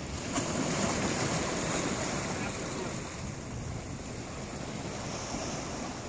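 Sea surf washing among shoreline rocks, with wind on the microphone.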